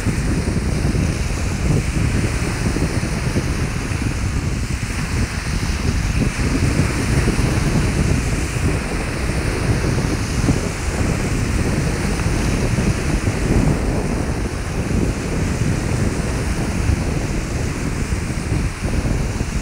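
Lake Erie waves breaking and washing onto a sandy beach, in a steady wash, with wind buffeting the microphone in an uneven low rumble.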